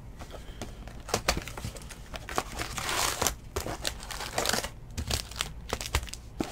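Plastic shrink wrap crinkling and tearing off a cardboard trading-card box, then the box's cardboard and the plastic-wrapped card packs rustling and clicking as the packs are lifted out.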